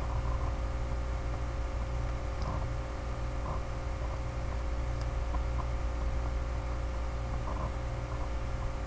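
Steady low electrical hum and hiss picked up by a makeshift computer microphone, with a few faint clicks.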